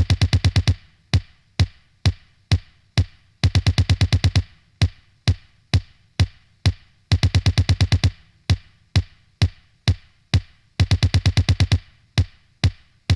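Electronic background music on a drum-machine beat: steady hits about two a second, broken every three to four seconds by a fast roll of quick hits.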